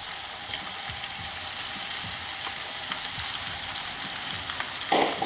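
Sliced peppers and potatoes frying in hot olive oil in a pan: a steady sizzle with small crackles, stirred with a wooden spatula. A short, louder knock about five seconds in.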